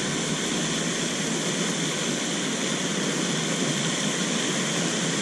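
Steady, unchanging rushing noise of water from a lake fountain spraying.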